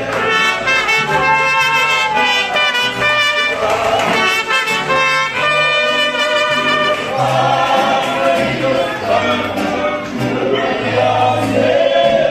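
Mariachi music: trumpets lead an instrumental passage over a steady bass line between sung verses.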